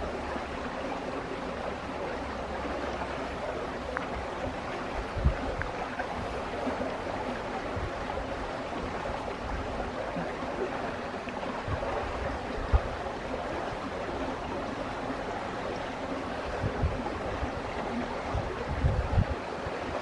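Steady rush of running water, even and unbroken, with a few brief low wind thumps on the microphone, more of them near the end.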